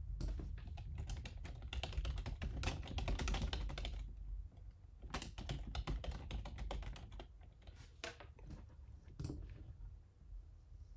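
Typing on a computer keyboard: a quick run of keystrokes for about four seconds, then scattered single key presses that die away near the end.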